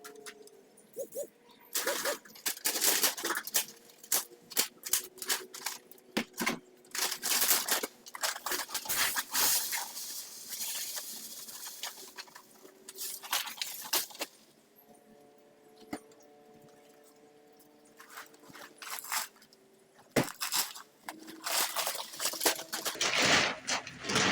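Dry feed and mineral being scooped and poured into a bucket: runs of rattling and rustling from the granules and bags, broken by sharp knocks, with quieter pauses between.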